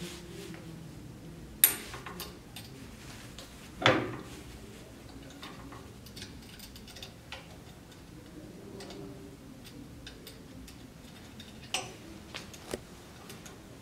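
Scattered small clicks and knocks from hands working at the rotary evaporator's motor housing and its power cable. A sharp click comes just under 2 seconds in, a louder knock at about 4 seconds, and a few lighter ticks near the end.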